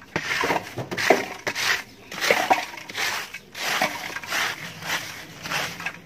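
Broom sweeping a dusty dirt floor, short scratchy strokes repeating nearly twice a second.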